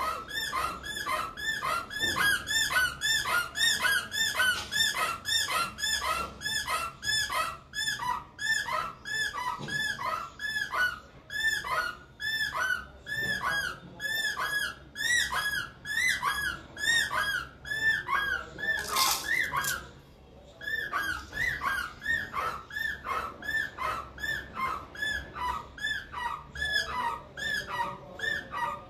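A small red squeaky toy squeaking over and over, about two to three short rising-and-falling squeaks a second, with a brief hiss and a short pause about two-thirds of the way through.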